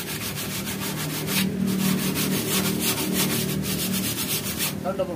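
Hand wet-sanding of burnt, rusty car body steel with sandpaper and soapy water: quick, even back-and-forth rubbing strokes, several a second, that stop shortly before the end.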